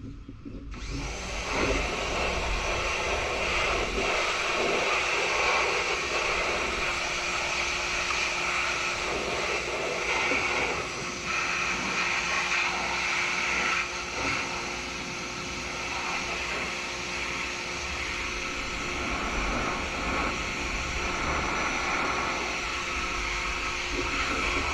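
Pressure washer spraying water with its motor running, a steady loud hiss over a constant hum. It starts abruptly about a second in.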